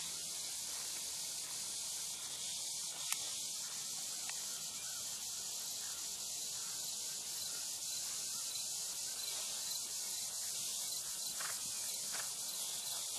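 Steady high hiss of insects in summer grass, with one sharp click about three seconds in. Faint soft hoofbeats of a pony trotting on turf come in near the end.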